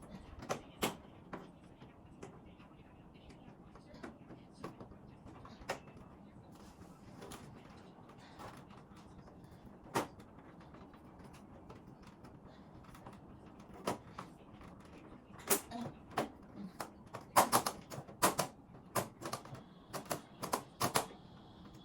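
Scattered clicks, knocks and creaks as air-conditioner parts are handled during cleaning, coming thicker and louder in a quick run of knocks over the last several seconds.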